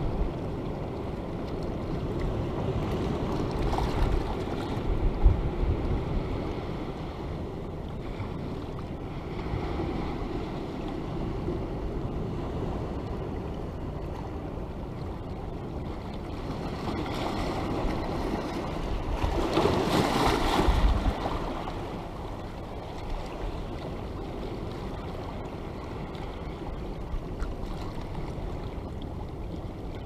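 Sea waves washing in and draining back over a rocky shore, rising and falling in swells, with the biggest surge a little after two-thirds of the way through. Wind buffets the microphone now and then.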